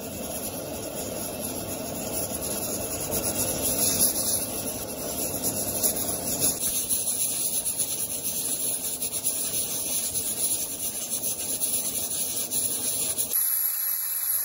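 Steam hissing steadily from a pressure cooker's weighted valve as the cooker holds pressure, over the rush of the gas burner beneath it. The lower part of the sound drops away about a second before the end.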